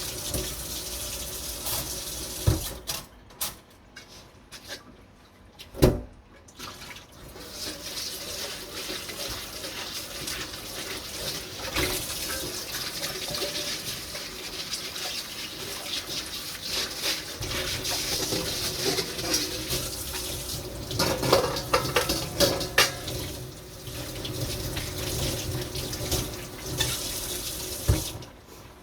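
Kitchen tap running into a sink while dishes are washed and rinsed, with scattered knocks and clatters of dishware. The water stops for a few seconds about three seconds in, with one sharp knock during the pause, then runs again until it cuts off near the end.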